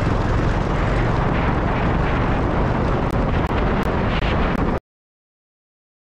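Wind buffeting the microphone and road noise from a moving vehicle: a loud, steady rush heavy in the low end that cuts off suddenly near the end.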